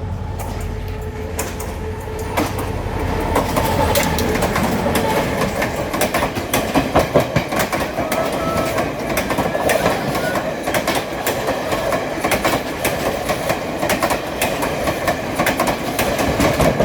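Train passing close by: a low rumble that grows louder over the first few seconds, then the steady clatter of wheels over rail joints, many sharp clicks over continuous rumbling.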